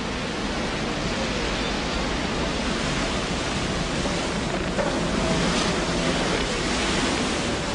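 Steady rush of wind and churning sea water along the side of a moving container ship.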